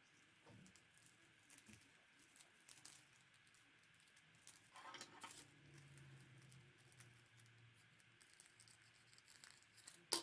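Faint rustling and crinkling of tissue paper and cellophane being handled, with scattered small ticks, a denser burst of crinkling about five seconds in, and one sharp tick near the end.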